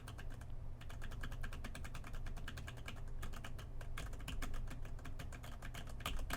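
Typing on a computer keyboard as picked up by a desk microphone, a rapid irregular run of key clicks that starts light and gets harder and louder about two-thirds of the way in, over a steady low hum.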